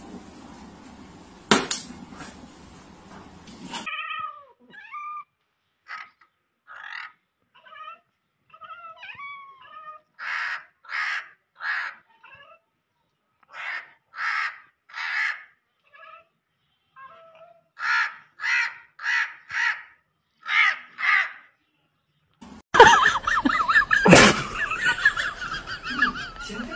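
Short, harsh animal calls in runs of two to four, with a few higher, chirping calls between them. It opens with two knocks over a background hiss and ends in loud clattering with a sharp knock.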